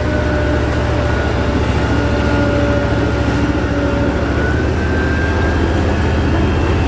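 Heavy diesel engine of an amphibious bridging vehicle running steadily under load as it moves through the water, a deep even rumble with a faint steady whine above it, over the rush of churning water.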